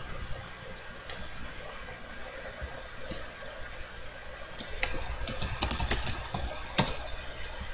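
Typing on a computer keyboard: a quick run of keystroke clicks starting about four and a half seconds in, with one sharper click near the end, over a low steady hiss.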